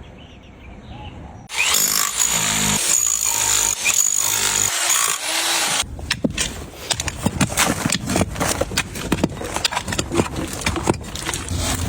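A power tool runs loudly with a steady high whine for about four seconds, then stops abruptly. A busy run of sharp metal-shop knocks and clicks follows.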